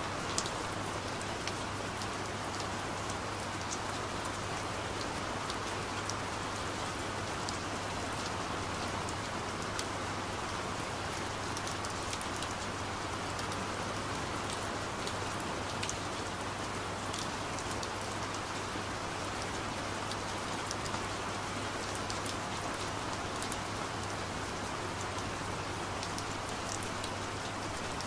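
Steady rain falling, with scattered ticks of individual drops over an even hiss and a low steady hum underneath.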